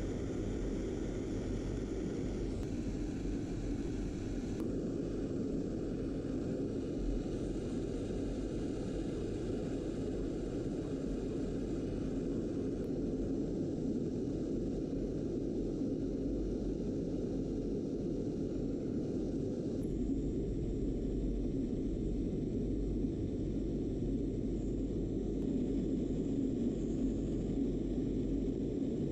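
Steady low hum and rumble, like a small motor or machine running, changing slightly in character about three and five seconds in and again near twenty seconds.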